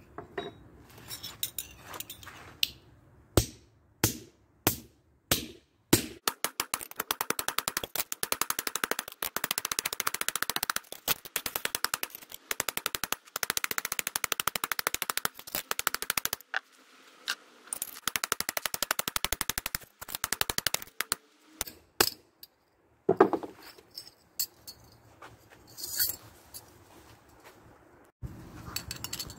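Hand hammer striking a metal spoon's bowl on a steel anvil, cold-hammering it into an arrowhead. A few separate blows come first, then long runs of rapid hammering broken by a short pause, then a few final single strikes.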